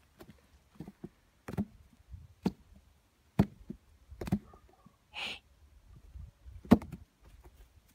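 A Dalmatian puppy moving about on wooden decking, giving a few sharp, irregular knocks on the boards, with a short hissing puff about five seconds in.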